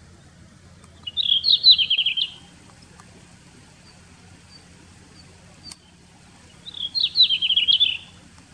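Male red-flanked bluetail singing: two short warbling phrases of quick, falling notes, about five seconds apart, over a faint low hum.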